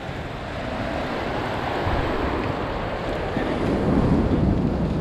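Sea surf breaking and washing over the rocks of a breakwater in torrential rain, with wind rumbling on the microphone: a steady rushing noise that swells a little about four seconds in.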